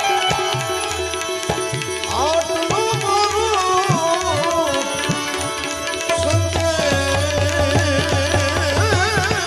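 Gujarati devotional bhajan music with no words sung: hand drums keep a steady beat under held accompanying tones, and a gliding, wavering melody line comes in about two seconds in.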